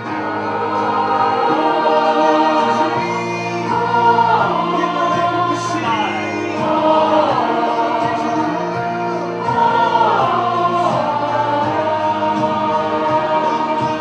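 Mixed choir of men's and women's voices singing together in parts, several voices moving in pitch over steady low sustained notes.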